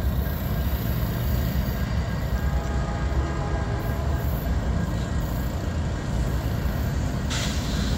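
Union Pacific diesel freight train rolling past, a steady low rumble of locomotive engines and wheels, with a brief hiss near the end.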